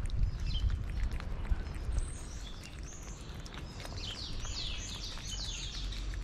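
A cat chewing chunks of wet food close up, with a steady run of small mouth clicks. About four seconds in, a bird chirps a quick series of about six notes.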